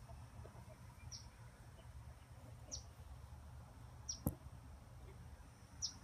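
A bird's short, high chirp that drops quickly in pitch, repeated five times about every second and a half, over a low steady rumble. A single sharp click sounds about four seconds in.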